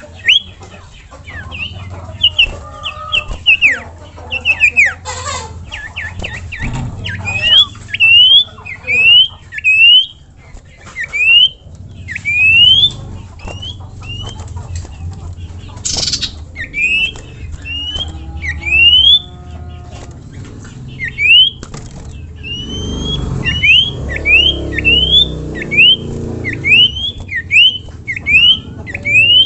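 A sirtu songbird singing: runs of short, sharp whistles that each sweep up in pitch, repeated about once or twice a second, over a low background rumble.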